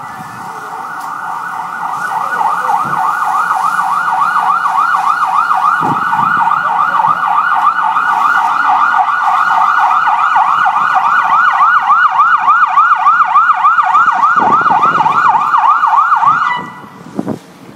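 Fire engine siren in a fast up-and-down yelp, about three sweeps a second, growing louder over the first few seconds as it approaches, then holding loud and cutting off suddenly near the end.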